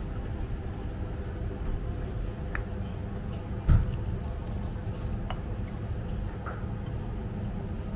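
A few light clicks and taps of wooden chopsticks against a ceramic plate and a wooden counter, with a dull thump about three and a half seconds in, over a steady low room rumble.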